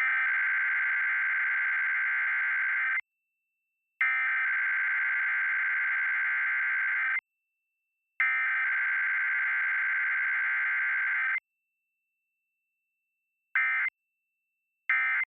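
Emergency Alert System Required Weekly Test: three SAME header bursts of shrill digital data tones, each about three seconds long with a second's gap between them, then, after a short pause, three brief end-of-message bursts. There is no attention tone and no voice message between them.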